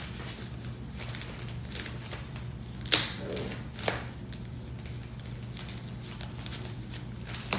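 Hands handling packaging: light rustling and scattered clicks, with sharper taps about three seconds in, about a second later, and near the end, over a steady low hum.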